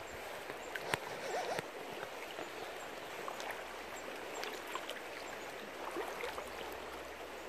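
River water flowing steadily, an even rushing noise, with one sharp click about a second in.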